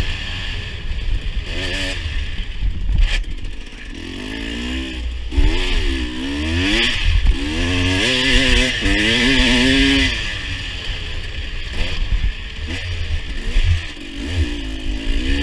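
KTM 300 two-stroke single-cylinder dirt bike engine being ridden, its pitch rising and falling again and again as the throttle is opened and rolled off, over a steady rumble and hiss with some clatter from the bike.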